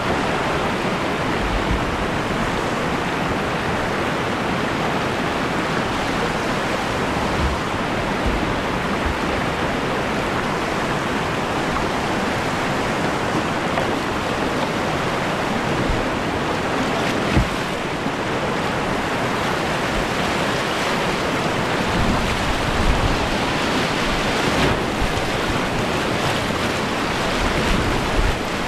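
Steady rush of whitewater on a river running at 1.8 m on the gauge, heard close up from a kayak. Wind buffets the microphone with low gusts in the second half, and there is one brief knock about 17 seconds in.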